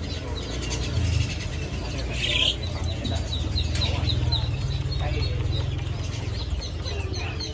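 Small bird chirping, short high chirps two or three times a second from about three seconds in, over a low rumble.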